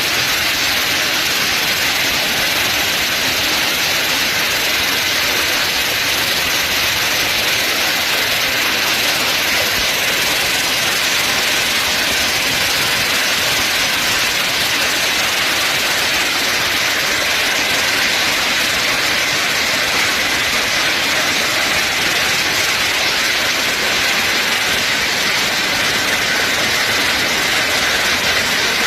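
Heavy storm rain mixed with hail, a dense steady hiss.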